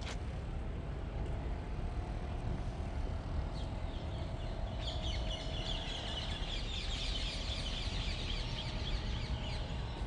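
Birds calling: many quick, high chirps that crowd together and grow louder about halfway through, over a steady low rumble.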